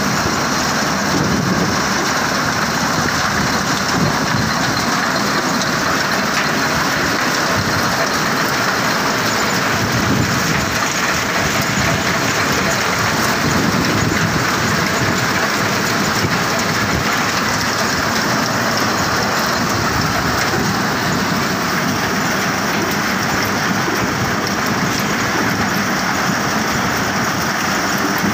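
Vardhman thresher machine running steadily while green plants are fed through it: a dense, continuous clatter of stalks and leaves being threshed.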